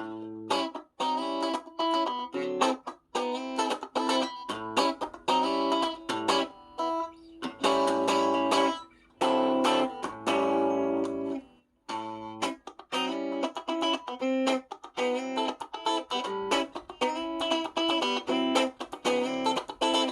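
Clean electric guitar played through a Keeley compressor pedal, with no reverb or delay: picked single notes and chords with a few short pauses between phrases.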